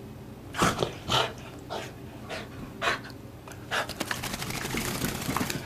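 A small Lhasa Apso–poodle mix dog breathing hard in loud, breathy puffs about every half second. From about two-thirds of the way in, a fast crackling rustle starts close to the microphone as the dog's face comes up against the camera.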